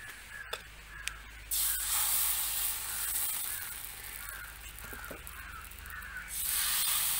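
Kallappam rice batter hitting a hot iron wok over a wood fire and sizzling with a loud hiss, once about a second and a half in and again near the end as a second ladleful goes in. Crows cawing repeatedly in the background.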